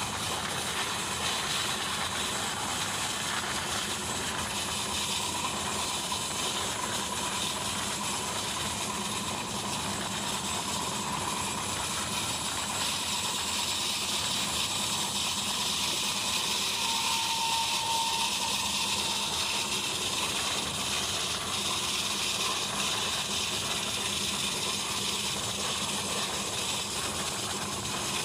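Steady rushing noise of a passenger express train running at speed, wheels on rails mixed with wind, heard from the coach's open side.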